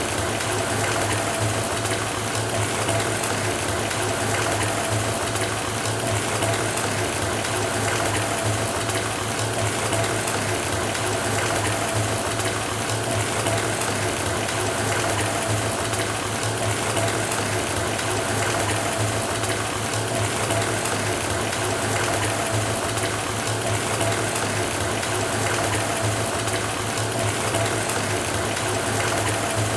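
Water running from a bathtub tap into a filling tub: a steady, even rush with a low hum underneath.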